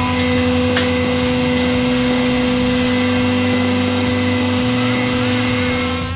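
Hydraulic press pump and motor running with a steady hum as the ram retracts, with a faint click about a second in.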